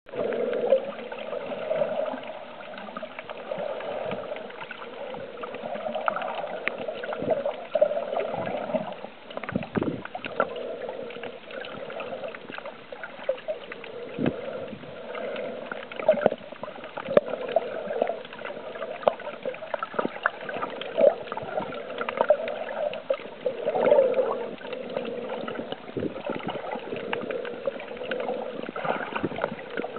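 Muffled water noise picked up underwater: steady swishing and gurgling with many small clicks and knocks.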